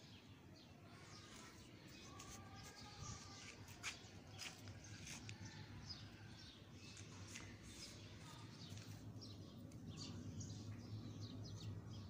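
Faint birds chirping: many short, scattered chirps over a low steady hum that grows slightly louder in the second half.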